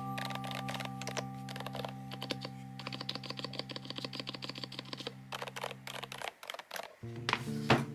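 Rapid typing on a Varmilo Minilo75 mechanical keyboard with Varmilo Prestige silent (low-noise) switches: a fast, dense run of keystrokes that stops about six seconds in.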